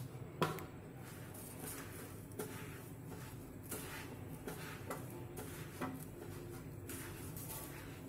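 Faint sound of a hand mixing sugar into roasted besan (gram-flour) dough in a stainless steel bowl, with soft scraping and occasional light taps against the metal. There is a sharper knock about half a second in.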